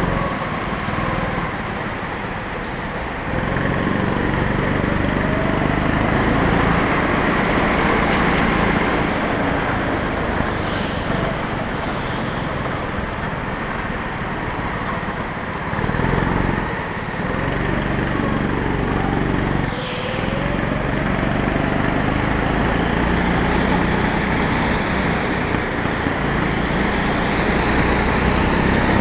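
Go-kart engine running close by under hard acceleration, dropping back briefly about three seconds in and twice more past the halfway point, then rising in pitch again each time as it picks back up.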